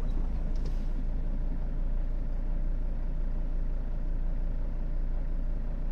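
Mercedes-Benz Sprinter van's diesel engine idling steadily with the clutch pedal pressed. With the clutch down the idle holds fairly even and the engine doesn't shake, a sign that the idle hunting and knocking come from a worn dual-mass flywheel.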